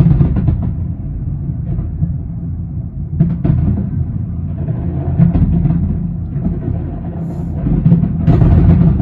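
Aerial fireworks bursting: a continuous low rumble of deep booms with sharper reports every second or two, growing louder and denser with crackling near the end.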